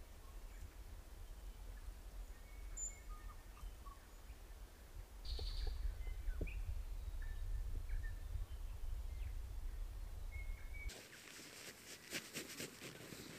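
Scattered faint bird chirps over a steady low rumble. About two seconds before the end the rumble stops and fabric rustles and crinkles as a stuff sack is packed.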